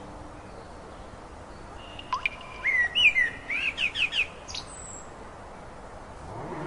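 A bird singing a short phrase of quick, sliding whistled notes and chirps, starting about two seconds in and lasting about two and a half seconds, over a steady background hiss.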